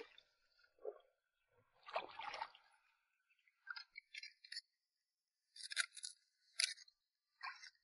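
Short, faint scrapes and clinks of a long metal tool against barnacle-crusted concrete, with a little water sloshing in the flooded hole, as crabs are probed for. About half a dozen separate small sounds, the fullest scrape about two seconds in.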